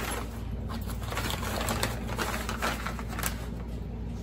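A large sheet of protective paper crinkling and rustling as it is spread out and tucked under the work.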